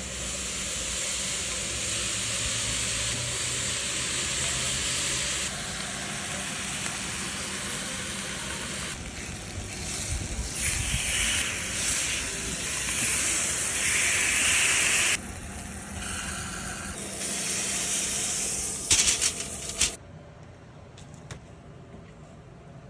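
Pork steaks sizzling on a hot grill, a loud steady hiss that swells and shifts between short cuts, with a few sharp crackles, then cutting off near the end.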